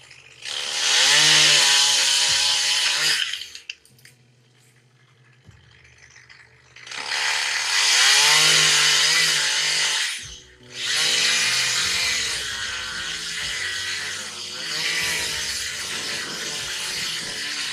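A chainsaw running at speed in three stretches: about three seconds, then another three seconds, then a longer run to the end. The engine pitch dips and recovers within each stretch, and it drops almost silent for a few seconds after the first.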